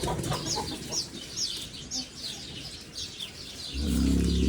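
Birds chirping steadily, a short high downward chirp several times a second. Near the end comes a loud, low-pitched call lasting about a second.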